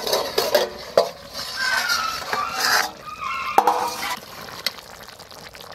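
A steel plate lid clinks and scrapes against the rim of a steel karahi as it is lifted off, with the sharpest clink about a second in. After about four seconds only a quieter hiss remains as the uncovered brinjal curry simmers.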